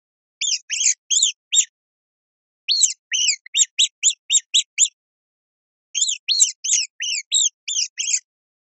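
Rodent squeaking: rapid runs of short, high-pitched squeaks, each a quick rise and fall in pitch, coming in three bursts of one to two seconds with silence between.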